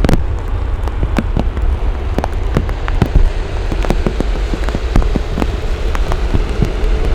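Heavy raindrops striking a surface close to the microphone, many irregular sharp taps over a steady low rumble.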